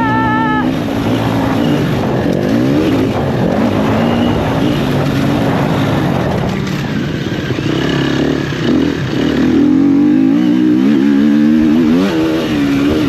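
KTM motocross bike engine revving hard while riding a dirt track, its pitch climbing and dropping again and again as the throttle is opened and closed through the gears, with steady wind and riding noise underneath.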